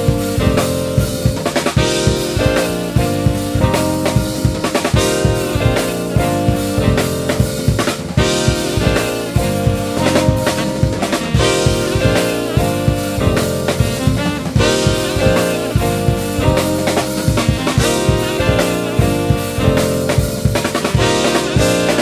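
Instrumental passage of a band song with no singing: a Godin electric guitar plays melodic lines over a steady drum-kit beat.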